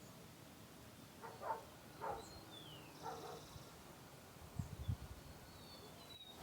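Faint outdoor animal sounds: a distant dog barks three times and birds give thin, high chirps. A few low thumps come near the end.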